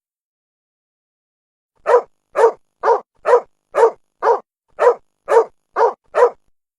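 A dog barking, added as a sound effect: about ten short, evenly spaced barks at roughly two a second, starting about two seconds in.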